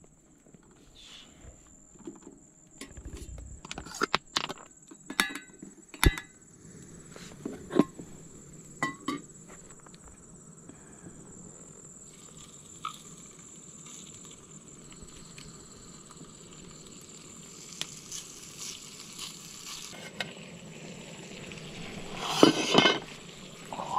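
Meat frying in a small pan on a portable gas-canister stove, with a sizzle that builds through the second half and swells loudly a second or two before the end. Sharp clicks and knocks of cookware and packaging being handled come in the first half, over a steady high insect trill.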